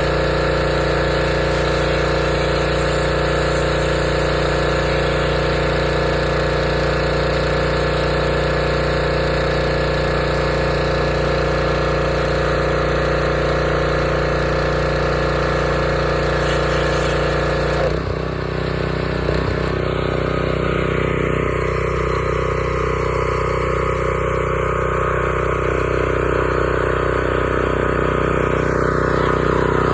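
Pressure washer's petrol engine running steadily at constant speed; about two-thirds of the way through its note shifts briefly, then settles into a steady run again.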